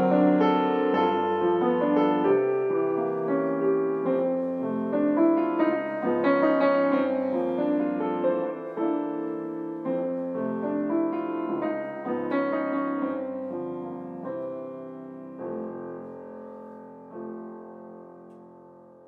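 Solo piano improvisation on a Bösendorfer piano: chords and a melody line that gradually get softer. About three-quarters of the way in it settles into held chords, with one more chord struck near the end, and these die away.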